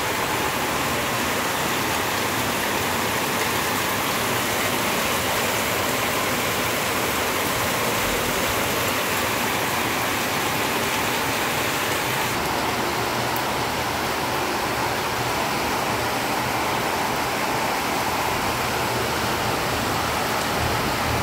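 Heavy rain pouring down steadily as a dense, even hiss.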